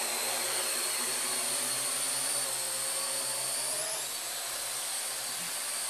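Small four-rotor quadcopter drone hovering and flying close by: a steady electric whirring whine from its rotors, the pitch shifting slightly about four seconds in as it moves.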